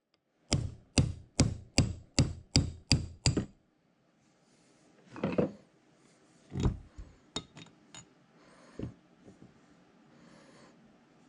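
Brass hammer striking a brass punch about eight times in quick succession, some two blows a second, driving the milling attachment's spindle out of its bearings. A scrape, a heavy knock and a few lighter clunks and clicks follow as the freed spindle is handled.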